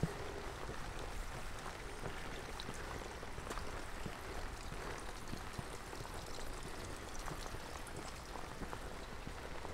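Rain falling with water running: a steady rushing hiss dotted with small scattered drips and taps.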